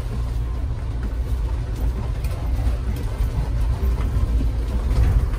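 Off-road 4x4's engine running with a steady low rumble, mixed with noise.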